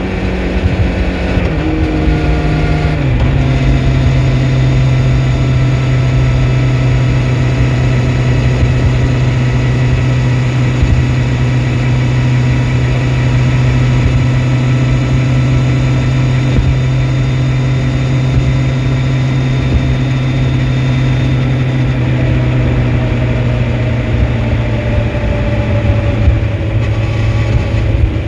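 Honda CBR1100XX Blackbird's inline-four engine under way. Its note steps down twice in the first three seconds, then holds a steady pitch at a constant engine speed, with wind rush on the microphone underneath.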